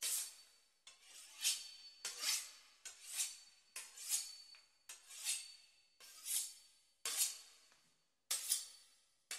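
A run of metallic scraping swishes, about one a second, each swelling and then fading.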